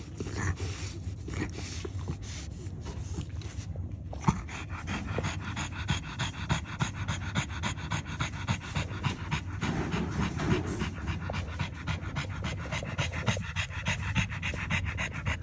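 French Bulldog mother panting rapidly and evenly while nursing a newborn puppy.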